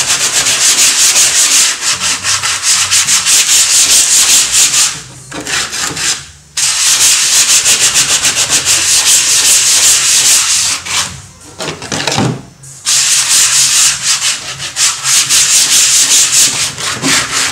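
Sandpaper on a hand block rubbed rapidly back and forth over a white-primed wooden panel, sanding the gesso ground smooth. Three long spells of quick rasping strokes, broken by two short pauses about five and twelve seconds in.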